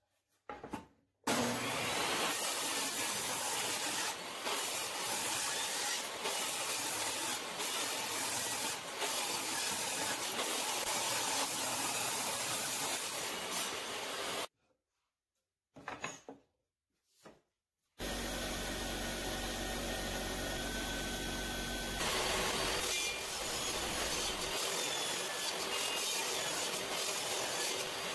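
Jobsite table saw running and ripping a walnut board into narrow strips. The saw noise is steady, broken by a few seconds of silence about halfway through.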